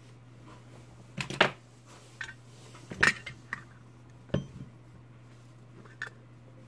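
A small round tin of flux paste being handled, set down and opened on a silicone work mat: about half a dozen sharp clicks and clinks, the loudest about a second and a half in and at about three seconds, over a steady low hum.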